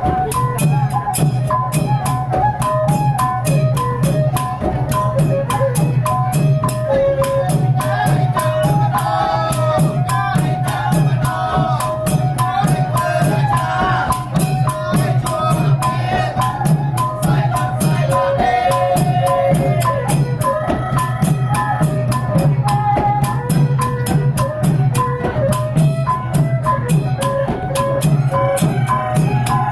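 Background music with a fast, steady percussion beat, a bass line and a melody.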